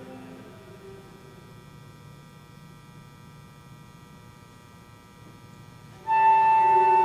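Flute and viola duo playing: a very soft passage of held notes, then about six seconds in the instruments come in loudly together on sustained notes.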